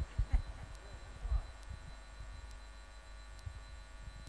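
Quiet pause with a few faint, irregular low thumps and rumbles, typical of handling noise on a microphone.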